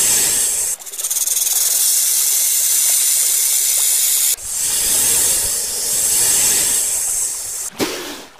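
Snake hissing sound effect: long, loud, steady hisses that break off abruptly about a second in and again about four and a half seconds in, with a short thud near the end.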